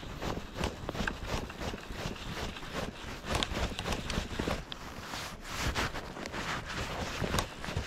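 Wind buffeting the microphone in an uneven low rumble, with irregular sharp clicks and knocks of handling noise, a few each second, while a fly rod is held into a hooked fish.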